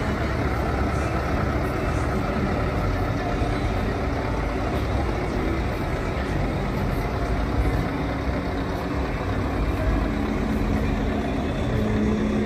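Heavy truck diesel engine running with a steady low rumble; a steadier hum sets in near the end.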